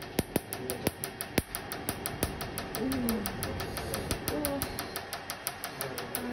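Tattoo-removal laser firing rapid pulses into the skin, a steady train of short sharp snaps about five or six a second, with a few louder snaps among them.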